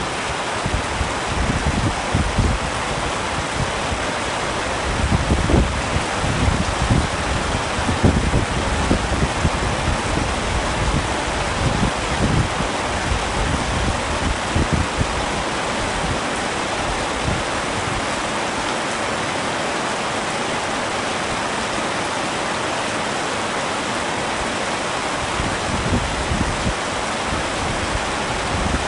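Heavy rain falling steadily in an even hiss, with irregular low rumbles and louder gusts coming and going in the first half and again near the end.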